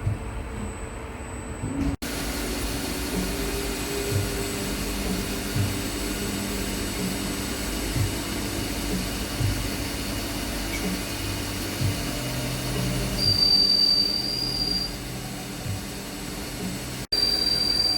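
Machinery running steadily with a regular knock about every second and a half. A high-pitched squeal comes in about thirteen seconds in and again near the end.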